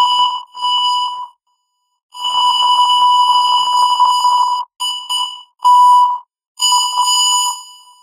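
Train whistle blowing a series of blasts at one steady, high pitch: two short toots, a long blast of about two and a half seconds, then three shorter toots. The tone is buzzy and electronic-sounding, like an alarm beep.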